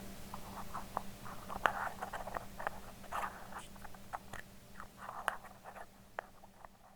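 Metal and glass lids being handled, tapped and rubbed: an irregular run of small clicks and short scratchy scrapes, thinning out toward the end.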